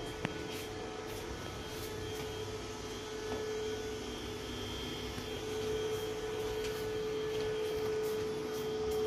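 A steady machine hum with a constant whining tone, and a single sharp click just after the start.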